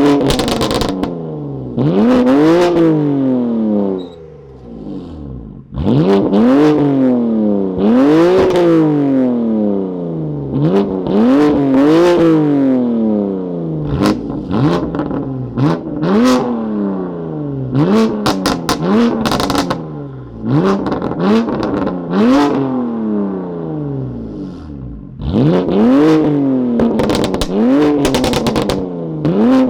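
BMW S55 twin-turbo straight-six revved repeatedly through a titanium equal-length, single-midpipe valved catback exhaust: a dozen or more quick blips, each climbing sharply and falling back, with brief lulls between groups. Pops and crackles on the overrun follow several of the revs.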